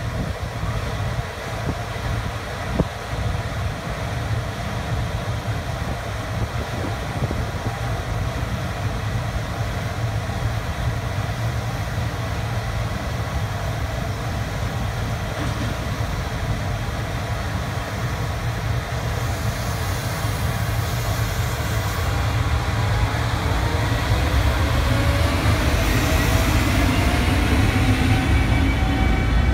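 JR Freight EF210 electric locomotive standing with a steady low hum, then pulling away from about twenty seconds in. The whine of its inverter-driven traction motors climbs in pitch in several tones as the freight train gathers speed, growing louder as it passes.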